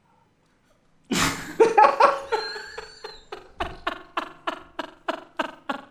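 Hearty laughter that bursts out suddenly about a second in, then runs on as a string of short ha-ha pulses, about three a second, growing fainter toward the end.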